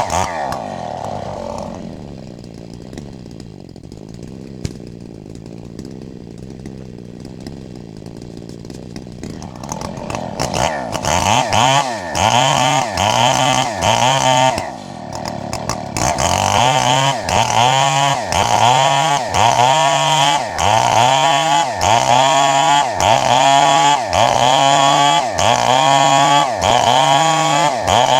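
Chainsaw engine dropping to a low idle, then from about ten seconds in revving up and falling back over and over, roughly once a second, as the chain cuts into a wood block.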